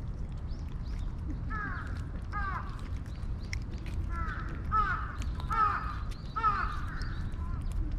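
A crow cawing: two caws, then after a short pause four more in a steady series.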